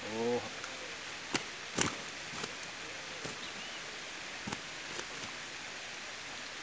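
Quiet outdoor background hiss with a few scattered sharp clicks and some faint, short chirps.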